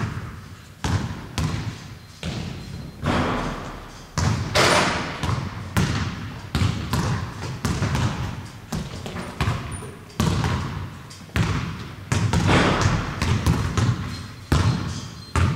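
A run of irregular thumps and knocks, each with a short ringing tail, coming about one or two a second.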